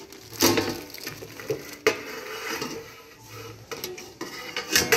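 A few sharp knocks and clatters: one about half a second in, one near two seconds, and the loudest near the end, with quieter rustling between.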